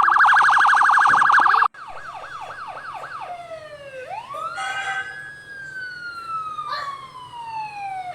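Electronic police siren in a very fast warble that cuts off about two seconds in. It then switches to a quicker yelp that sweeps up and down about five times, drops low, and goes into a slow wail that climbs once and slowly falls.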